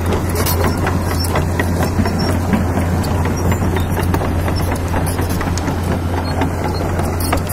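Kobelco SK200 Super crawler excavator's diesel engine running with a steady low hum as the machine tracks across a field, with scattered light clicks over it. The engine runs smoothly; it was rebuilt after a broken piston ring.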